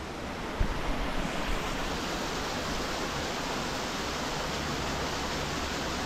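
Small mountain creek waterfall and stream rushing steadily, an even hiss of falling water. A brief low thump comes about half a second in.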